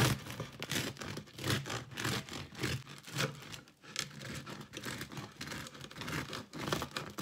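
Knife sawing through the crisp, crunchy crust of a freshly baked round loaf of country bread: repeated rasping strokes back and forth, about two a second, with a short pause a little past halfway.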